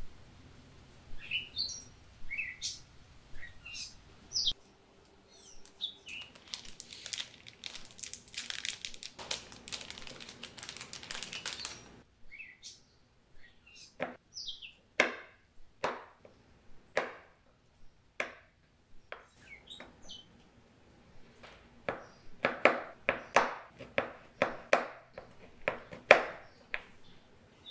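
Chef's knife chopping a bar of dark chocolate on a wooden cutting board: separate cracking chops through the chocolate, then a quicker run of chops near the end. Birds chirp in the background at the start.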